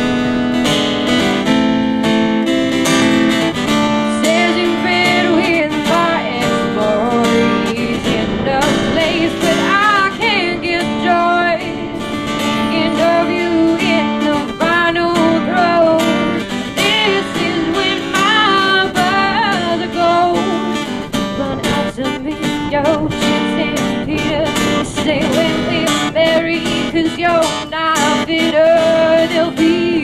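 Acoustic guitar strummed, with a wavering melody line over the chords.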